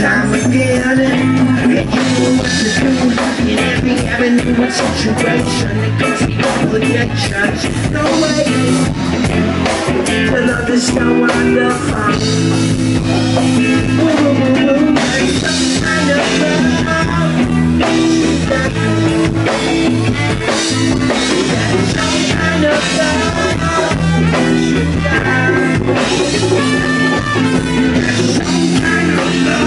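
A live rock band playing a passage without lyrics: electric guitars over bass and a drum kit, with congas.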